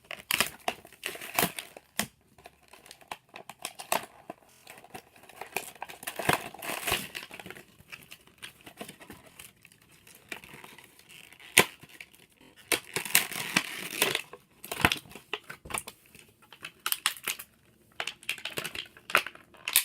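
Toy packaging being handled and torn open: plastic and cardboard crinkling and tearing, with irregular sharp clicks and rustling bursts.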